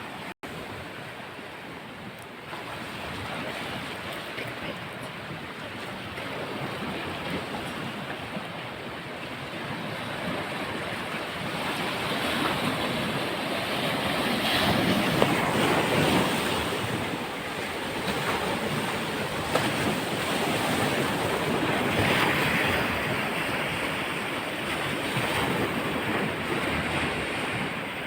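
Sea surf washing onto a beach, a steady rush that swells louder about halfway through and again later before easing.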